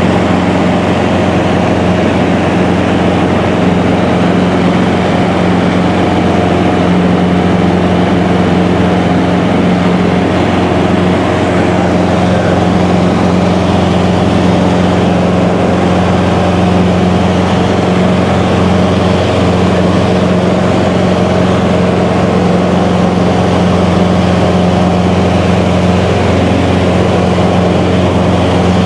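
Light aircraft's engine and propeller running at a steady cruise drone, heard from inside the cabin.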